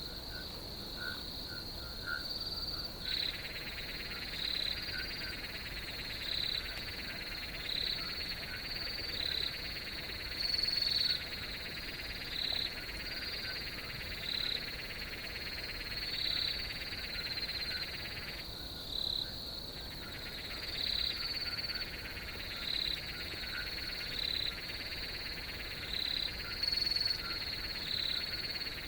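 Chorus of crickets: a steady high trill with a louder chirp repeating about every two seconds. A second, lower buzzing trill comes in a few seconds in and drops out for a moment past the middle.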